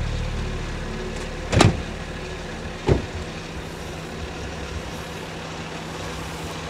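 Car engine idling with a steady low hum while two car doors slam shut, one about a second and a half in and the other about three seconds in. The first slam is the louder.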